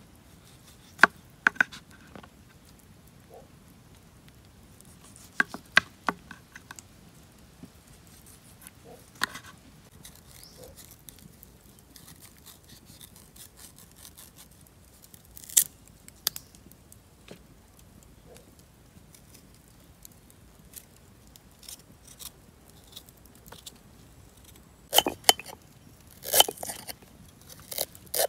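Small kitchen knife peeling and slicing a fresh root by hand: scattered short cuts, scrapes and clicks with quiet gaps between, busiest near the end as pieces are sliced off into a stone mortar.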